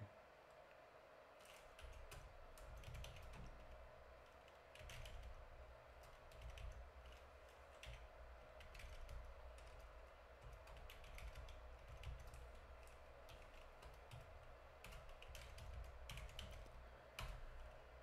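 Faint computer keyboard typing, with irregular spurts of keystrokes starting about a second and a half in.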